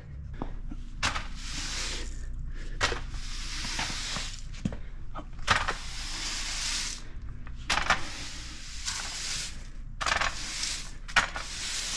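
Broom sweeping a garage floor: a series of bristly swishing strokes, each about a second long, with short pauses and a few light knocks between them.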